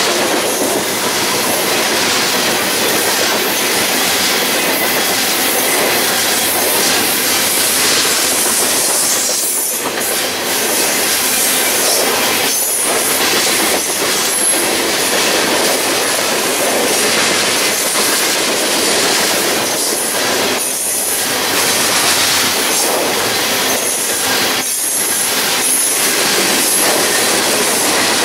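Freight train of covered hopper cars rolling steadily past close by: the steel wheels keep up a continuous loud rumble and clatter on the rails.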